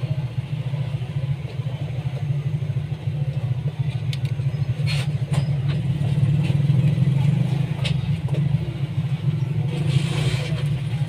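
A steady low mechanical hum, with a few light clicks about four to five seconds in and again near the end.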